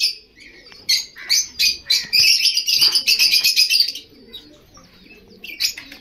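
Caged lovebirds chattering in rapid, high-pitched chirps for about three seconds, breaking off briefly and starting up again near the end.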